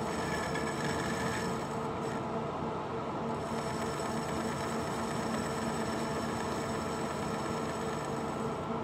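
Metal lathe running steadily, with its cutting tool working in the bore of a gear spinning in the chuck.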